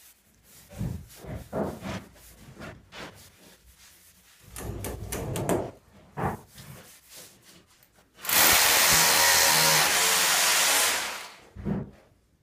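Scrapes and knocks of a trowel working mortar along a course of aerated concrete blocks. About eight seconds in, a loud, steady rushing noise runs for about three seconds, then fades out.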